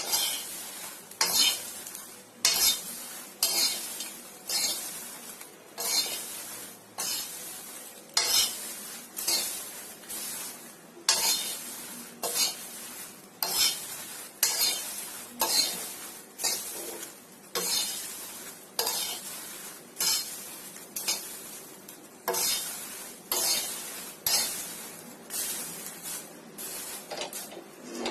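Freshly popped popcorn being tossed and mixed with spice powders in a pot, a rustling swish repeated in even strokes about every three-quarters of a second.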